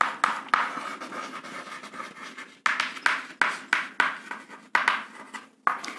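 Chalk writing on a chalkboard: a run of short scratching strokes and taps, in bursts with brief pauses between them.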